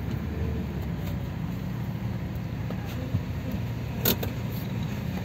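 Car engine running at low speed in stop-and-go traffic, heard from inside the cabin as a steady low hum. A short sharp click sounds about four seconds in.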